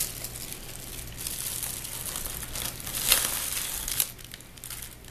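Gift packaging crinkling and rustling as it is handled and pulled open, with two sharper, louder crackles about three and four seconds in.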